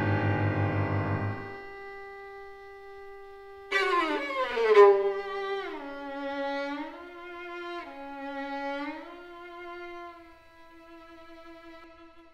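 Solo bowed strings, violin-like: a full low chord dies away in the first second or two and leaves one held note, then a slow melody enters with sliding pitches and vibrato, fading out near the end.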